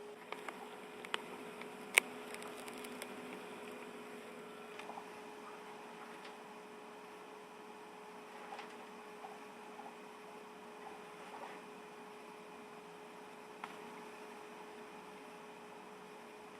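A steady low electrical hum, with a few small sharp clicks and faint rustles; the sharpest click comes about two seconds in.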